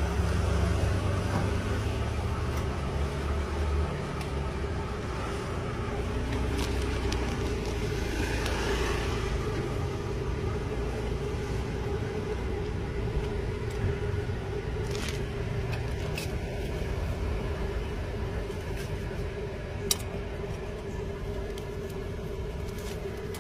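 Steady street-traffic rumble with a constant low hum, heaviest in the first few seconds as a vehicle passes, broken by a few sharp clicks, one about twenty seconds in.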